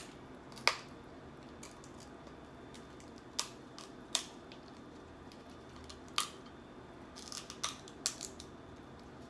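Snow crab leg shells cracking and snapping as they are broken apart by hand: a series of sharp, separate cracks, several close together near the end.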